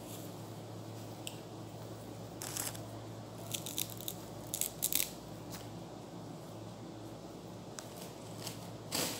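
Bunches of fresh mint being handled and trimmed: crisp rustling and snapping of leaves and stems in short clusters, about two and a half seconds in, again around four to five seconds, and near the end, over a steady low hum.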